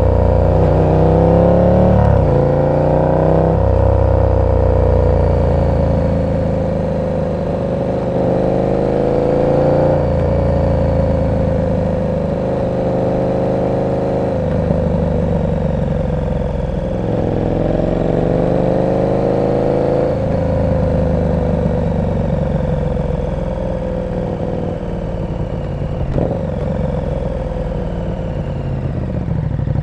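KTM 1290 Super Duke R's V-twin engine through an aftermarket exhaust, revving up in several short pulls with a drop in revs after each, as it shifts through the gears. After that it runs steadily at lower revs, easing slowly down.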